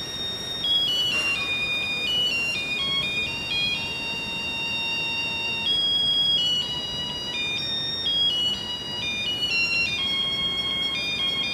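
Electronic music of high, pure beeping tones that jump between pitches in an irregular, stepping melody like a ringtone, over a faint hiss.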